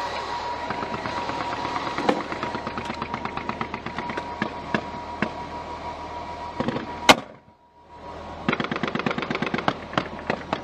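Sustained automatic machine-gun fire, many shots a second in long bursts. A single very loud crack comes about seven seconds in, then a brief pause, then the rapid fire starts again.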